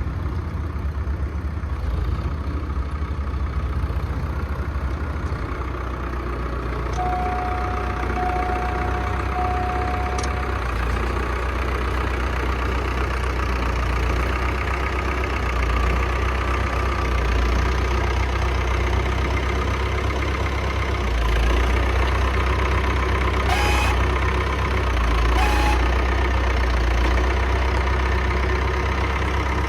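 Tractor engine running steadily at low speed with a deep rumble. A steady high tone lasts about three seconds, starting around a quarter of the way in, and two brief sharp knocks come about two seconds apart in the second half.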